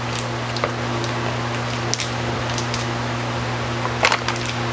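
Steady low electrical or fan hum with a constant hiss, and a few faint clicks, the strongest cluster about four seconds in.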